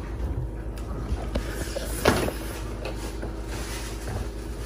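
Eating by hand from a metal plate: soft clicks and scrapes as gloved fingers work rice and curry, with one sharper clink or smack about two seconds in, over a steady low hum.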